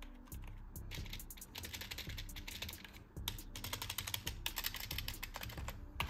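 Fast typing on an Ant Esports MK1700 membrane gaming keyboard, a quick run of muted key clacks. The typing stops briefly about three seconds in, then picks up again.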